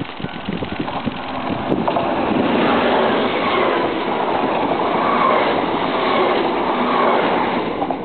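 Japanese level-crossing bell striking, then from about two seconds in a KiHa 181 series diesel express train passing close by: a loud, steady rush of diesel engine and wheel noise that covers the bell.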